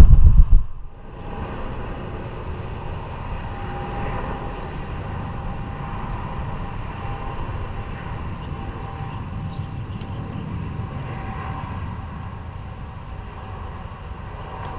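A jet airliner's engines heard at a distance: a steady rush of engine noise with a faint whine. A loud low rumble cuts off about a second in.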